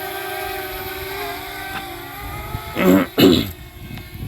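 A steady motor hum with a few overtones, wavering slightly in pitch. About three seconds in, a short loud burst of a person's voice or a cough.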